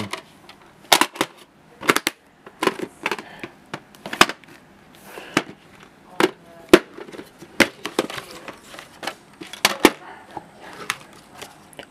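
Clear plastic VHS clamshell cases being handled, opened and snapped shut: many short sharp plastic clicks and snaps at irregular intervals.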